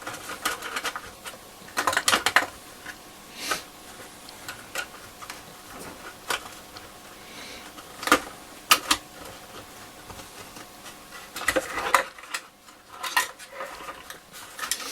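Irregular small clicks, knocks and light metallic clatter from handling a transistor radio's chassis and parts, in clusters about two seconds in, around eight to nine seconds in, and again near the end.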